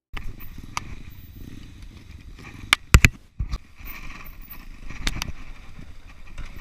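Yamaha Serow 250's air-cooled single-cylinder engine running at low speed on a rough dirt trail, with several sharp knocks and rattles as the bike jolts over ruts, the loudest a pair about three seconds in.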